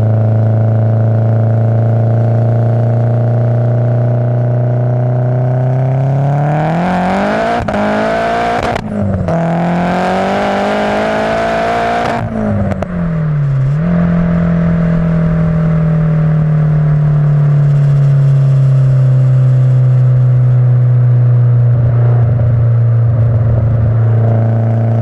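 Nissan S14's turbocharged SR20DET four-cylinder running through a decat 3-inch cat-back exhaust with a single silencer. It cruises steadily, then about six seconds in the revs climb hard under acceleration, dip briefly at a gear change, and climb again. About twelve seconds in they fall back, and it settles into a steady cruise that slowly eases off.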